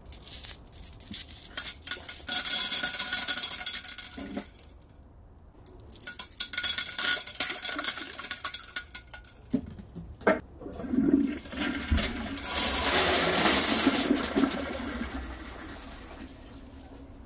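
Small hard objects poured from a bag into the toilet-bowl water, splashing and clinking in two spells with a pause between. Then the toilet flushes: a loud rush of water swirling down the bowl that fades away near the end.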